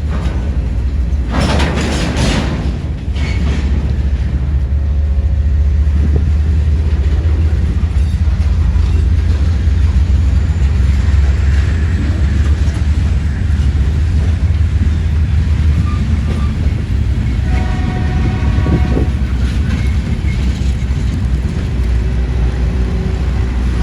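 A train rumbling past with a steady, heavy low rumble from its locomotive and wheels. About three quarters of the way in, its horn sounds a held chord, and it sounds faintly again near the end.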